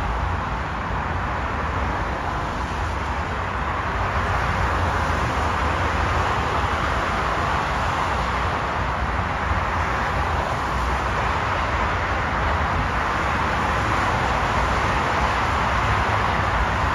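Steady expressway traffic noise mixed with a CTA 'L' rapid-transit train rolling slowly in along the rails toward the platform, growing slightly louder as it nears.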